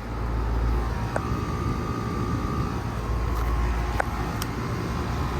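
Lennox Elite central air conditioner condenser running steadily, its Copeland scroll compressor and condenser fan giving a low hum. A few faint clicks are heard.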